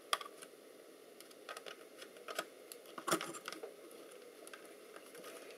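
A few small, scattered clicks and taps of metal parts being handled during disassembly. The loudest comes about three seconds in.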